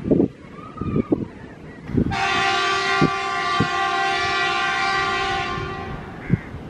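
WAG-7 electric locomotive's horn sounding one long, steady chord for about three and a half seconds, starting about two seconds in. Irregular low thumps come before and after it.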